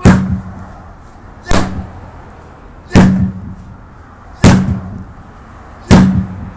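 Five heavy blows struck on a tire, about one every second and a half, each a sharp thud followed by a short low ringing.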